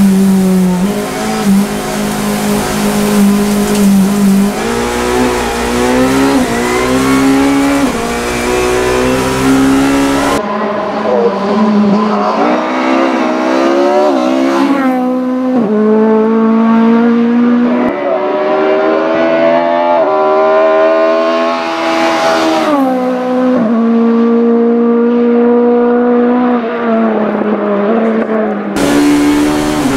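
A VW Scirocco Mk1 hillclimb car's 2.0-litre naturally aspirated Spiess SP G02 race engine revving hard toward 9,000 rpm under full throttle. Its pitch climbs through each gear and drops at every upshift. It is heard first from inside the car, then, from about ten seconds in until near the end, from the roadside as the car drives by.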